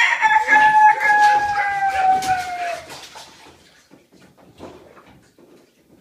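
A rooster crowing: one long call, held and slowly falling in pitch, ending about three seconds in.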